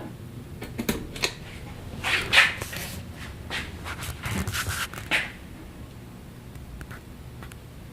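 Ceiling fan's light switch clicking a few times about a second in, as the bottom light is switched on. Two soft breathy, rustling bursts follow.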